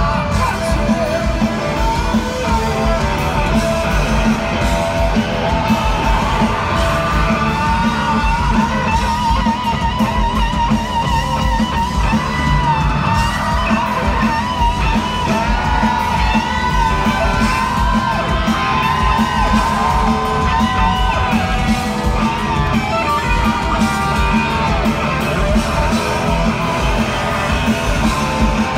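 Rock band playing live and loud, electric guitars with singing, heard from within the crowd in a large hall. Long, wavering held notes carry the melody through the middle.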